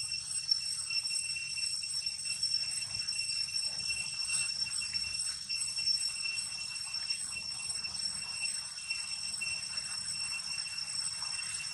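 Steady high-pitched insect drone, several shrill tones held without a break, with faint scattered rustles beneath.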